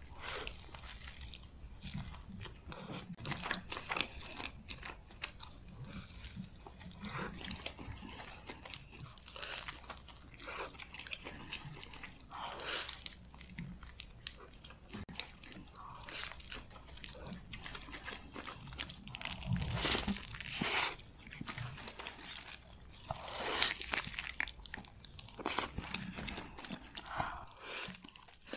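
A person biting into and chewing a large burger in a soft seeded bun: close-miked, irregular wet mouth clicks and smacks, with louder bites about two-thirds of the way through.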